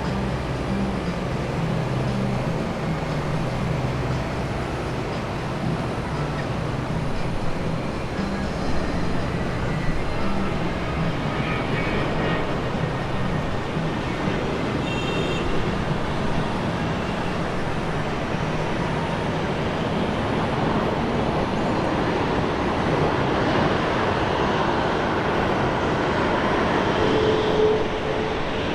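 Jet airliner engines running with a steady noise that grows brighter and louder toward the end, where a short high whine comes in.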